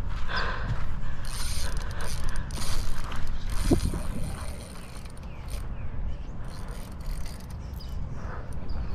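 Spinning reel working during the fight with a hooked tarpon: the reel's gears and drag give a steady mechanical clicking and whirring as line is worked against the fish.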